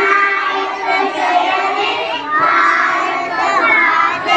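Young children singing together in unison.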